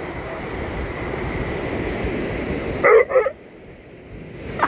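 A dog barks twice in quick succession about three seconds in, over a steady rush of wind and surf.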